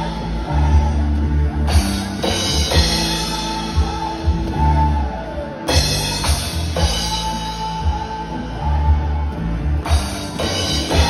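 Live band playing amplified dance music: drum kit driving the beat under a heavy bass line and electric guitar, with cymbal crashes about two, six and ten seconds in.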